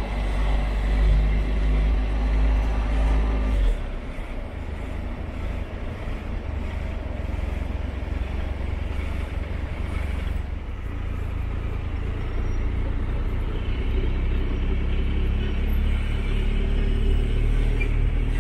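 Motorcycle engine running at low speed in traffic, heard from the rider's seat; its note drops sharply about four seconds in and builds again near the end.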